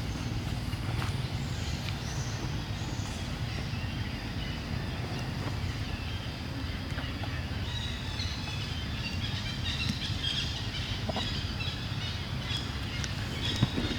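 Outdoor ambience: a steady low rumble, with high chirping calls joining about halfway through and a few sharp clicks right at the end.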